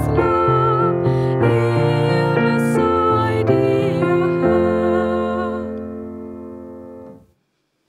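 A woman singing a worship song to her own accompaniment on a Nord Piano 2 stage piano. The last chord is held and fades away, ending about seven seconds in.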